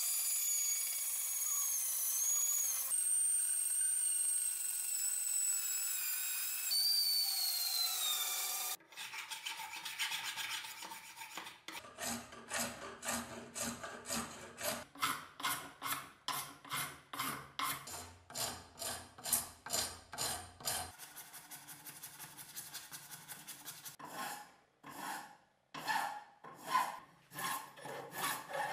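Bench band saw cutting a handle scale, the blade giving a high, wavering squeal for about the first nine seconds. Then a long flat hand file rasps in quick back-and-forth strokes, about two a second, on a workpiece clamped in a vise, slowing near the end.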